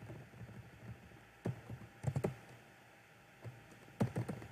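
A few quiet clicks and taps at a computer, keys and mouse buttons, in small clusters about a second and a half in, around two seconds, and near the end, as the form's fields are filled in.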